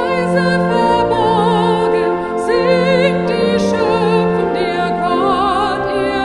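A woman singing a German hymn solo with vibrato, over held accompaniment chords.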